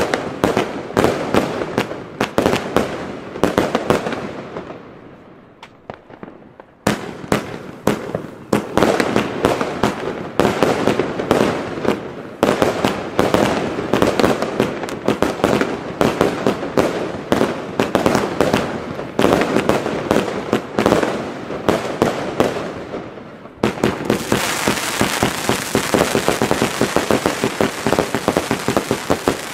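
Pyro Century 'knisternder Funkenhimmel' firework compound cake firing: a rapid string of shots and bursting stars with crackle. It dies away about five seconds in and starts again sharply at about seven seconds. Near the end it turns into a dense, continuous crackling.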